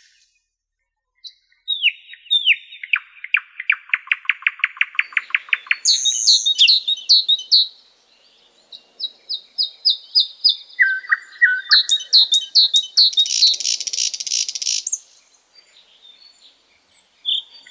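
Several songbirds singing. One song opens with a few falling notes that run into a fast trill, and other birds add short chirping phrases over and after it. There is a brief pause near the end.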